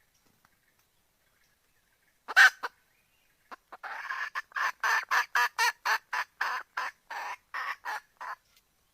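Junglefowl hen calling the rooster: a loud short double note about two seconds in, then a long run of quick clucks, about three a second, that stops shortly before the end.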